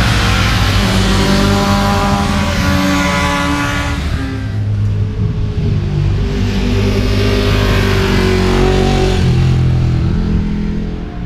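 Track sport bikes passing at speed one after another, their engines revving hard with the pitch rising and falling as they go by. The engine noise is loudest over the first four seconds, dips briefly, and swells again for a few seconds before fading near the end.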